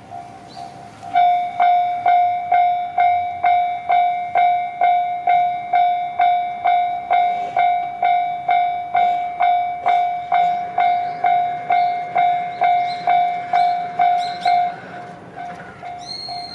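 Railway level-crossing warning bell ringing in an even rhythm of about two strokes a second. It is loud from about a second in and drops sharply near the end.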